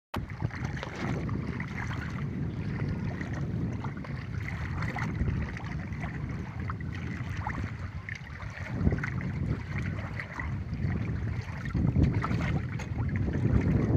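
Wind buffeting the microphone in gusts over water lapping against a small fishing boat.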